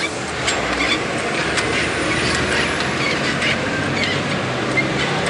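Irregular metal clicks and knocks over a steady noisy hum in a tyre workshop, as the motorcycle is being raised on a jack.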